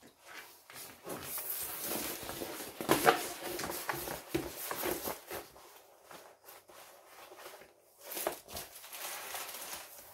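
A large rolled diamond painting canvas, its plastic cover film on, being unrolled and smoothed flat by hand: the film rustles and crinkles in uneven scrapes, with one sharp crackle about three seconds in and another flurry near the end.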